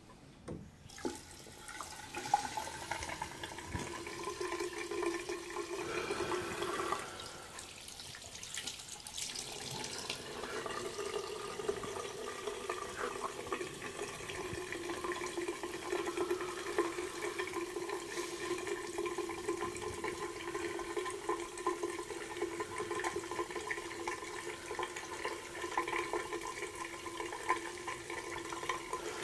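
Water running from a bathroom sink tap, with a steady tone in the flow. It falters for a few seconds about a quarter of the way in, then runs on steadily.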